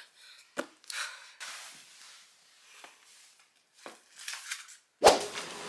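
Faint rustling and light clicks of a person moving on a bed and handling a phone. About five seconds in comes a sudden louder noise, followed by a steadier background hum.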